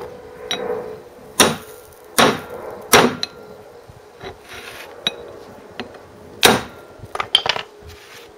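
Hammer tapping a ring, turned from thick-wall pipe, down onto the hub of the 1944 J.A.P. Model 3's cast flywheel: sharp metallic strikes at irregular intervals, the loudest about 1.5, 2, 3 and 6.5 seconds in, with a quick run of lighter taps near the end. The ring is there to hold a small crack in the flywheel closed and stop it spreading.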